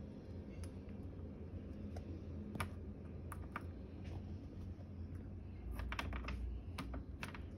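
Small plastic toy key clicking and tapping against a metal door lock as it is poked and jiggled in the keyhole: scattered irregular clicks, with a quick run of them near the end.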